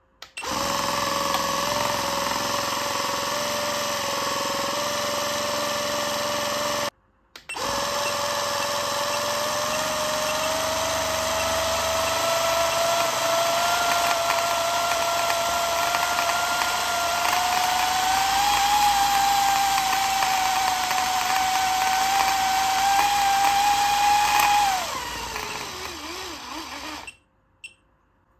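Gemmy dancing hamster toy's small electric motor overdriven from a bench power supply, running with a steady high whine that climbs slowly in pitch as the voltage is turned up. Near the end it winds down in pitch and stops as the toy fails and stops drawing current.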